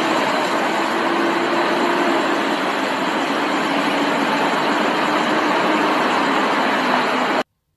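Steady rushing noise of a wet city street, a dense hiss with a faint low hum under it, cutting off abruptly near the end.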